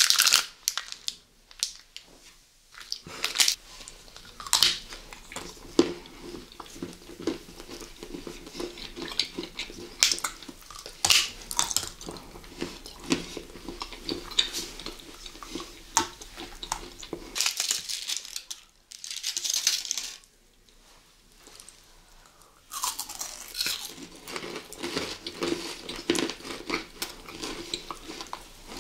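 Close-miked eating sounds: food being bitten and chewed, with irregular crisp crunches and clicks. The sound stops for about two seconds a little past two-thirds of the way through.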